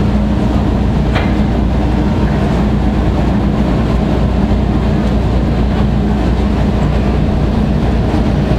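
Steady low mechanical drone with a constant hum, with one sharp click about a second in.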